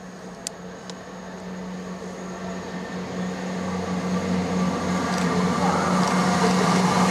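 A train approaching through the station, its running noise growing steadily louder, over a steady low hum. A couple of small clicks in the first second.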